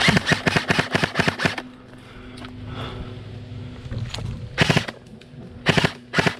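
Airsoft electric rifle firing: a rapid burst of about ten shots at roughly six a second, then a pause, a couple of shots, and another short burst near the end.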